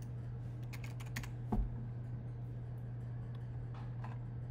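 Typing on a computer keyboard: a few scattered key taps, the heaviest about one and a half seconds in, over a steady low hum. The taps are a search word being typed.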